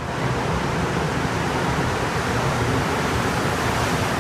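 Rubber-tyred Montreal Metro train running into the station alongside the platform: a steady, loud rush of noise with a deep rumble underneath.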